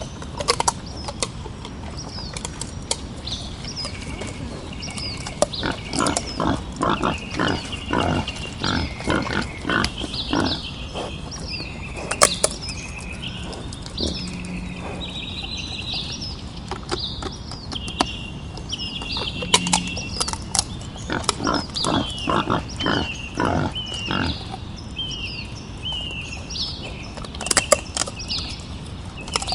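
Wild boar grunting in quick runs of short grunts, with small birds chirping throughout.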